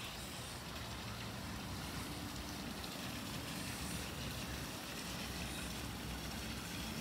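Steady wind noise with a low, uneven rumble of wind buffeting the microphone.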